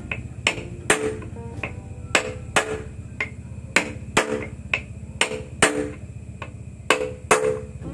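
Hammer blows on a steel drift driving a ball bearing into the aluminium gearbox cover of a Yamaha Mio, about two sharp metallic taps a second, each ringing briefly. The blows go round the bearing's edge to press it in straight; it is not yet seated.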